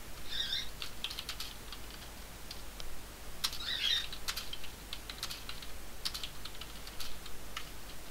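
Computer keyboard being typed on: irregular runs of key clicks as a short line of text is entered.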